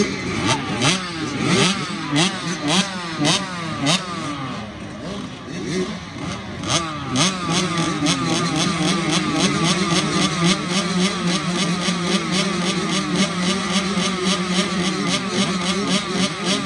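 Several motocross bikes racing, engines revving in quick rising sweeps as they shift up through the gears, then running on at steadier revs from about seven seconds in.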